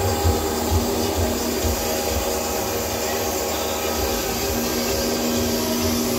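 Kole FS4 spindle moulder running with no workpiece: a steady electric-motor whir with a held hum, under a low throb that pulses about twice a second.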